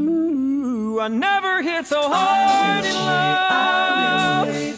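Male a cappella group singing with no instruments. A solo voice sings a quick run that swoops up and down over steady backing voices, then the group holds a sustained chord that stops just before the end.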